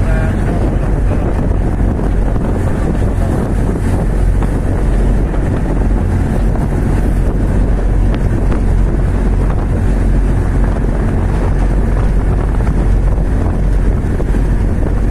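A tugboat's diesel engine running steadily with a low hum, with wind buffeting the microphone.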